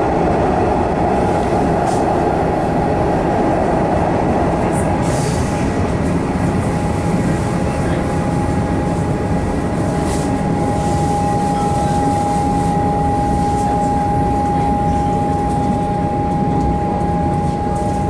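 Cabin noise inside an EDI Comeng electric suburban train running on elevated track: a steady rumble of wheels and running gear. A steady whine sits on top and grows stronger about two-thirds of the way through.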